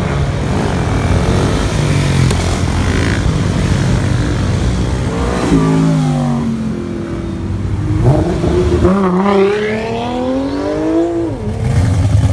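Car engines revving and accelerating past on a street. Under a low engine rumble, one engine's pitch falls about five seconds in. Another climbs steadily for about three seconds, then drops off sharply, and a deep pulsing engine rumble follows near the end.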